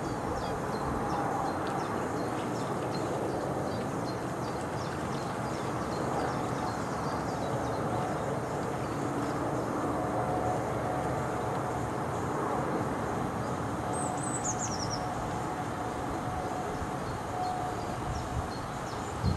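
Steady rumbling background noise, with faint high chirps of small birds scattered through it and a short falling twitter about fourteen seconds in.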